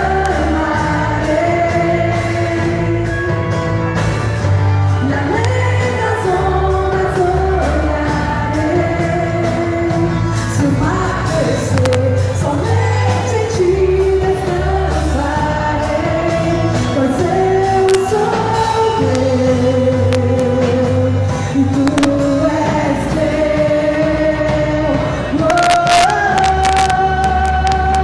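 A live worship band playing a slow song, with a singer's voice holding and gliding between long notes over steady low bass notes. Cymbals ring out near the end.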